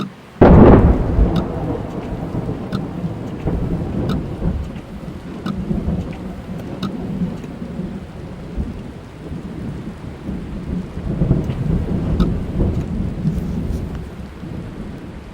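Thunder heard from inside a car in a rainstorm: a sudden loud crack about half a second in, then a long rolling rumble that swells again near the end, over steady rain on the car. Faint regular ticks come about every second and a half.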